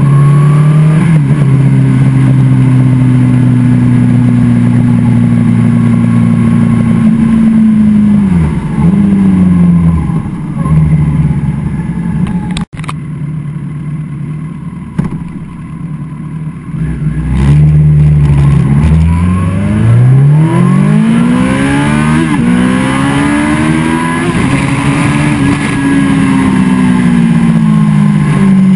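2013 Kawasaki ZX-14R inline-four running through a Brock's Performance Alien Head 2 full exhaust, heard from the rider's seat. It starts with a steady cruising drone that winds down as the bike slows, then cuts off abruptly. After a quieter stretch comes a hard acceleration: the revs climb in quick sweeps broken by two upshifts, then a longer pull peaks and falls away near the end.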